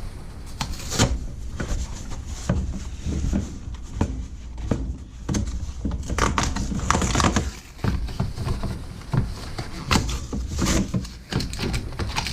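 A carbon monoxide detector's packaging being opened and handled: irregular rustling and scraping, broken by sharp clicks and knocks.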